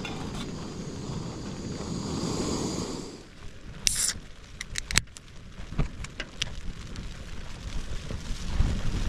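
Gas camping stove burner running with a steady rush, shut off about three seconds in; a short hiss and several sharp clicks of handling follow.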